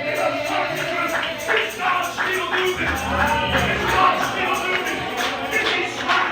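Church music with a tambourine jingling to a steady beat, mixed with voices.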